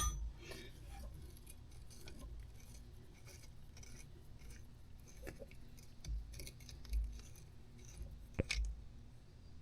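Faint metallic clicks and light knocks of a wrench working a hydraulic hose fitting on an excavator's swing motor, with a sharper click near the end.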